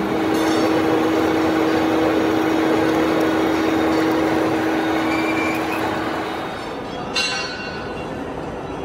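Vertical lathe running steadily, its tool cutting the hub of a large spinning metal gear blank, with a steady hum over the machining noise. Near the end the noise drops and a single sharp metallic clink rings out.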